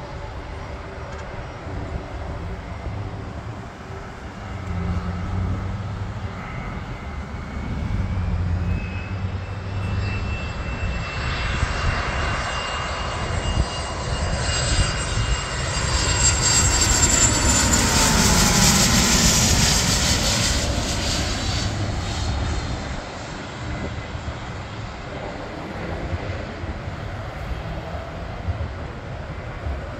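Business jet's turbofan engines passing low overhead on landing approach: the noise builds to a loud peak about two-thirds of the way in, its whine falling in pitch as the jet goes over, then eases off.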